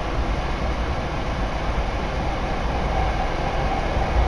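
Hankyu Kyoto Line electric commuter train running, heard from inside the carriage: a steady low rumble of wheels on rail and running gear.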